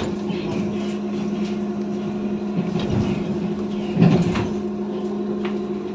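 Inside a moving BKM 321 trolleybus: a steady electrical hum that holds its pitch, with light rattling of the body and one louder knock about four seconds in.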